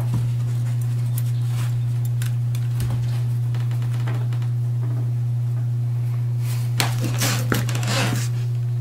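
A steady low hum throughout, under scattered scratching and rustling as a dog paws and noses at a towel beneath a low wooden shelf, with a short run of louder scrabbling near the end.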